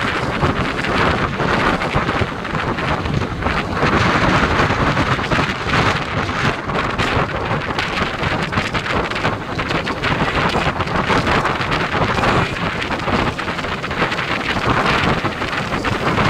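Wind rushing over the microphone of a camera on a moving motorcycle, loud and steady with no break.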